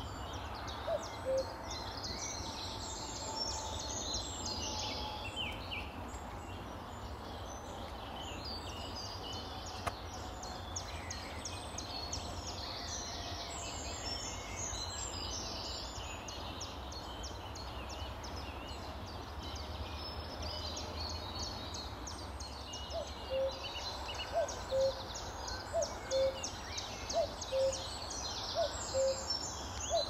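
Male common cuckoo calling 'cuck-oo', a higher note dropping to a lower one. One call comes about a second in, then the calls repeat steadily about once a second over the last seven seconds. Under it runs a continuous chorus of small songbirds with fast, high twittering.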